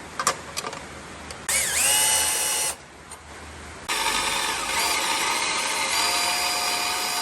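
A handheld drill-type power tool motor winds up to a steady whine for about a second, stops, then runs steadily for about three seconds more, its pitch stepping slightly partway through. Scattered light taps come before the motor starts.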